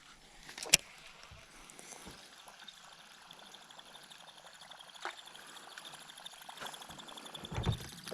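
Faint water lapping and trickling against a boat hull, with one sharp click about a second in and a few softer clicks and knocks later.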